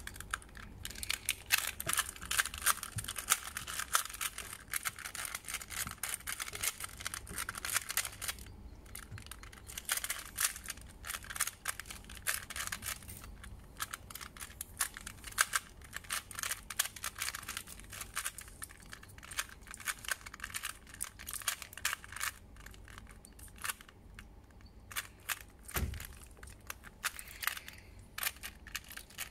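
A 2x2 Rubik's cube being twisted fast by hand in a timed speed solve: rapid clicking and clattering of the plastic layers turning, with brief lulls about eight seconds in and again a little before the end.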